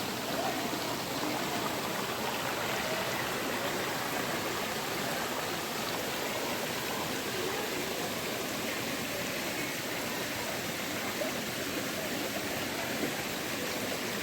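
Steady rush of flowing water, an even noise that holds at one level throughout.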